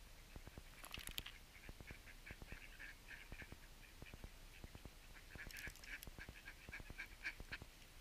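A flock of ducks quacking faintly in quick runs of short calls, one run about a second in and a longer one from about five to seven and a half seconds in.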